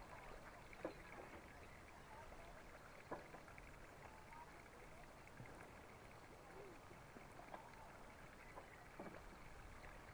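Near silence: faint outdoor background hiss, with a few faint clicks and short faint chirps.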